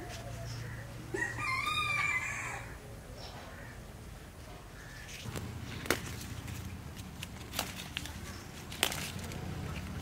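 A rooster crows once, about a second in, for about a second. Later come a few short clicks as the bashak shrub's leaves are handled.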